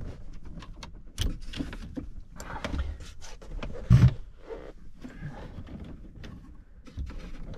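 Handling noise from hands working among brass air-line fittings and wiring inside a truck's dash panel: scattered clicks, rattles and rustling, with a sharp knock about a second in and a louder knock about four seconds in.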